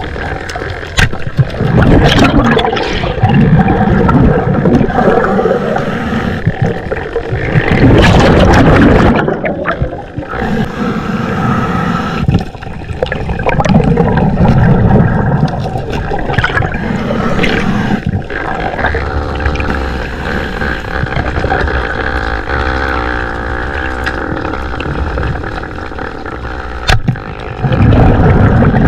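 Muffled underwater sound of water rushing and gurgling past a diving camera, swelling loudly every few seconds. A steady low hum joins it from about twenty seconds in.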